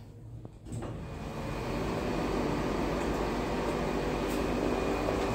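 Namma Metro train heard from inside a carriage, starting to move off: a steady running noise with a faint thin whine builds up from about a second in, then holds level.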